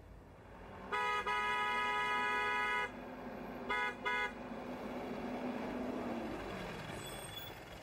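Light box truck's horn: one long honk of about two seconds, then two short toots. The truck's engine hum follows as it draws near, swelling and then fading out near the end.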